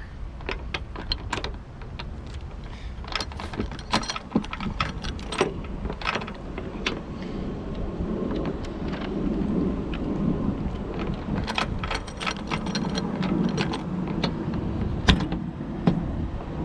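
Irregular metallic clicks and taps of hand tools and hood-latch parts as an aluminum hood latch is loosened and adjusted. A low rumble builds from about halfway, with a couple of sharper knocks near the end.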